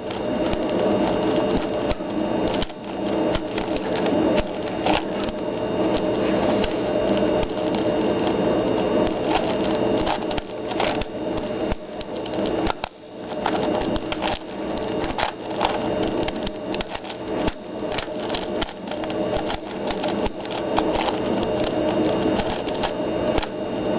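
Plastic 4x4 Rubik's cube being turned quickly, its layers clicking and clacking in a dense, continuous rattle of turns, with a short break about 13 seconds in. A faint steady hum sits underneath.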